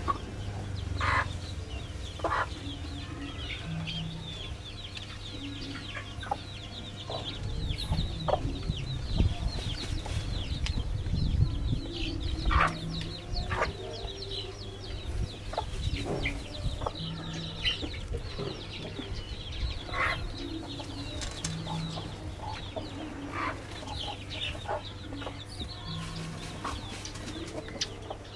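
Chickens clucking in a coop, short separate clucks scattered through, over a dense spread of faint high chirping and a steady low hum.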